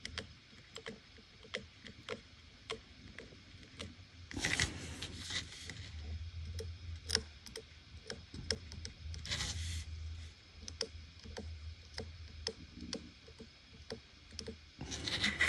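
Faint soldering work on a circuit board: small clicks and crackles two or three times a second as a soldering iron tip is run over a fluxed chip's pins, with two short hissing scrapes about four and nine seconds in.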